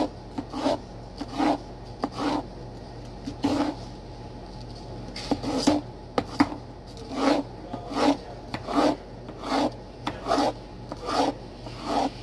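Chef's knife slicing an orange bell pepper into strips on a cutting board: regular cuts, about one a second, each ending as the blade meets the board, with a short pause near the middle.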